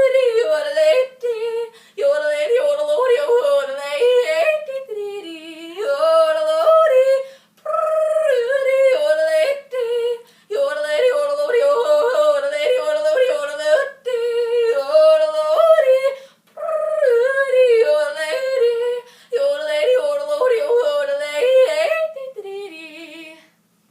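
A woman yodeling unaccompanied, her voice flipping rapidly between a low chest note and a high head note in repeated phrases with short breaths between them. The last phrase tails off near the end.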